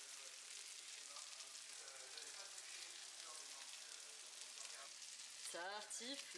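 Lardons and sliced onions sizzling steadily in a frying pan, a faint, even hiss.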